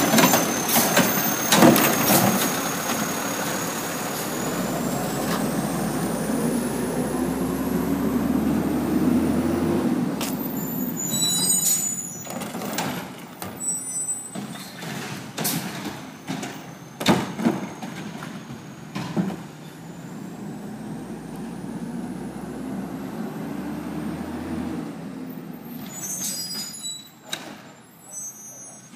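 Automated side-loader garbage truck's diesel engine revving up as it pulls away, its pitch climbing, with a thin rising whine, then squealing brakes and an air-brake hiss as it stops. This happens twice. A few knocks are heard at the start.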